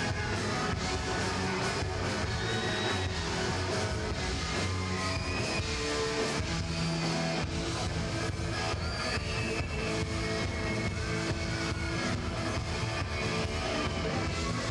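Steel pan orchestra with a rock band playing a heavy-metal cover, an electric guitar playing lead with bent notes over the band.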